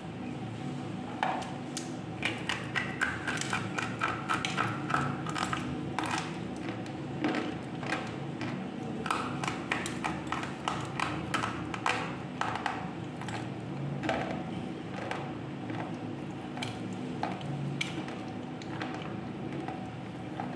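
Slate pencil being bitten and chewed: a long run of sharp, dry crunches and snaps, coming in irregular clusters and thinning out near the end, over a steady low hum.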